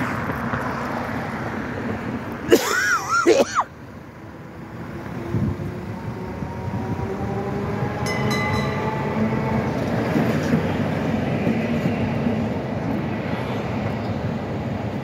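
Electric tram passing in city traffic over steady traffic noise. About two and a half seconds in comes a brief loud wavering squeal, and from about six seconds a rising electric whine as the tram picks up speed.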